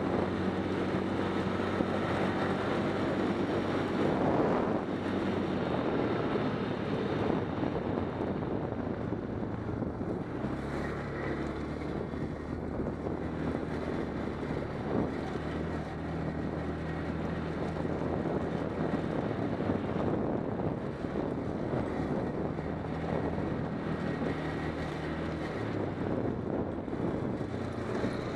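ATV engine running under way, its pitch stepping down about a third of the way in and shifting a few more times with throttle and speed. Wind buffets the microphone throughout.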